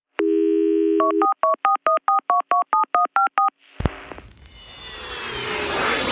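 A telephone dial tone for about a second, then a quick run of about a dozen touch-tone keypad beeps. A click follows near the four-second mark, then a rising whoosh that builds to the end.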